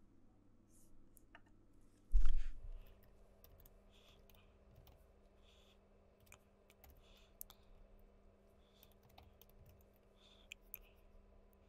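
Faint computer keyboard typing and mouse clicks, with one loud, low thump about two seconds in.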